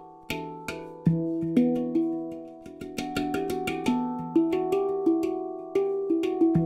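Handpan in E Shahmaran 9 (E Kurd) tuning, made of nitrided DC04 steel, played with the fingers. Struck notes ring and overlap in a flowing melody over a low bass note, and the notes come quicker in the second half.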